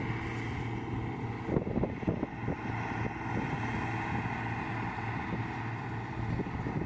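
Bizon combine harvester running steadily in the distance while harvesting, a continuous hum of engine and threshing gear, with wind buffeting the microphone.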